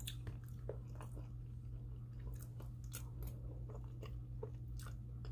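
A person chewing a mouthful of food close to the microphone, with scattered small mouth clicks and smacks, over a steady low hum.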